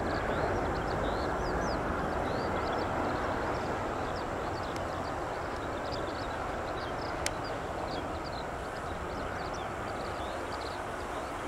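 Twin-engine jet airliner rolling out on the runway after landing, a steady rush of engine and air noise that eases off slightly. Many small birds chirp high above it throughout, and there is a single sharp click about seven seconds in.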